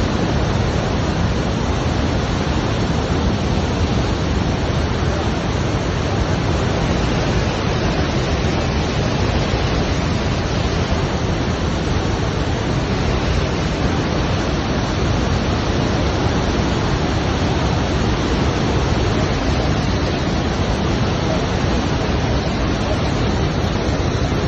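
Murchison Falls, the Nile pouring through its narrow gorge: a steady, unbroken loud rush of falling water.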